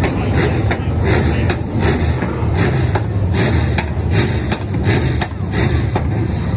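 Stock car engines running as the cars race around a dirt oval, with a string of sharp clicks, about two or three a second.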